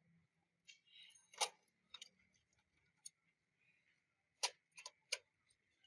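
Sparse sharp metallic clicks and taps from a motorcycle's rear wheel parts being handled by hand: one about a second and a half in, then three in quick succession near the end, with fainter ticks between.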